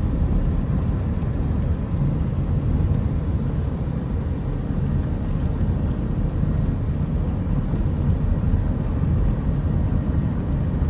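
Steady low rumble of a Kia car driving, heard from inside the cabin.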